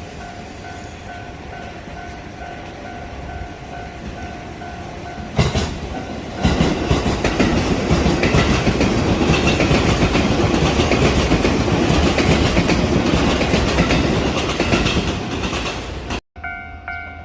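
A Japanese level crossing warning bell rings in an even electronic ding about twice a second. About five seconds in, a train arrives and passes close by, its wheel and rail noise with clickety-clack drowning the bell for about ten seconds. Near the end the passing noise cuts off abruptly and the bell is heard again.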